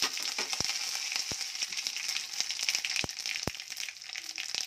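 Cumin, mustard seeds, chana dal and urad dal sizzling in hot oil in a kadai, a steady hiss with scattered crackles and a few sharper pops as the tempering fries.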